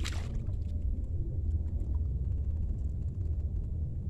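Steady low rumble of wind buffeting the microphone, with a short burst of noise right at the start.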